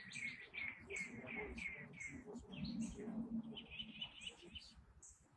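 A bird singing: a run of quick descending chirps, about four a second, then a brief rapid trill near the end.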